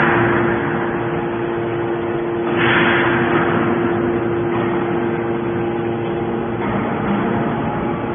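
Hydraulic scrap metal baler running, a steady machine hum with a held tone, and a louder burst of rushing noise about two and a half seconds in.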